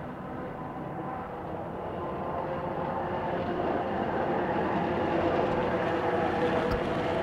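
BNSF maintenance-of-way truck running along the line, a steady drone with a few held tones that grows louder as it approaches.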